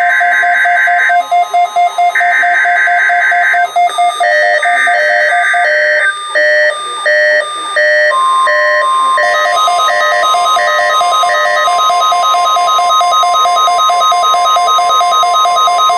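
NOAA weather radio alarms going off for the National Weather Service weekly test. Several electronic beep patterns repeat and overlap. About eight seconds in, the steady 1050 Hz warning alarm tone comes in loud and holds under the beeping.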